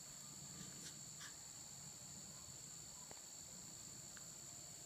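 Faint, steady, high-pitched insect drone in a near-quiet background, with a couple of faint ticks about a second in.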